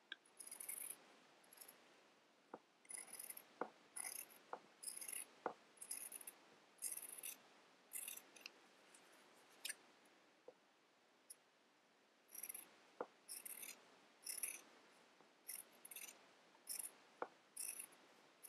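Scissors snipping through embroidery fabric: a faint run of short cuts, a few each second, that thins out for a few seconds in the middle before starting again.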